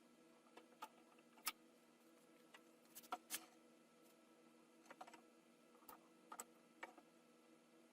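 Faint, irregular light clicks and taps, about a dozen spread unevenly through, over a steady low hum.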